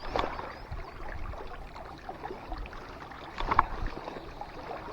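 River current rushing and lapping around a wading angler, with two louder splashes, one just after the start and one about three and a half seconds in.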